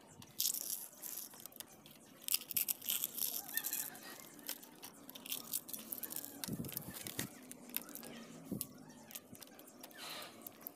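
Fruit peel and eggshell being torn and broken into small pieces by hand and dropped into a jar: crackling, tearing and light clicks in bursts, with a few soft thuds in the middle.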